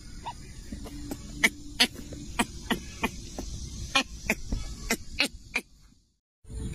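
Handling noise on a handheld phone camera: irregular sharp clicks and knocks over a low rumble as it is moved around close to a baby monkey. The sound cuts out completely for a moment near the end.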